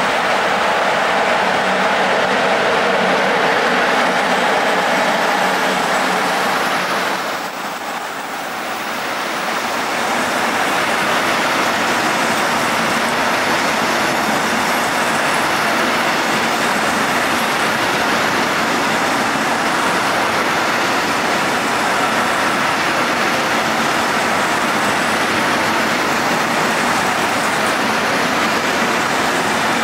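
Freight train of covered hopper wagons rolling past close by: a steady noise of wheels running on the rails. The sound dips briefly about eight seconds in.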